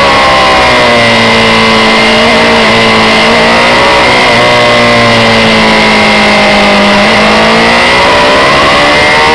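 Honda CB600F Hornet's inline-four engine running at speed, its note dipping and climbing again several times as the throttle is eased and reopened, under heavy wind rush on the bike-mounted microphone.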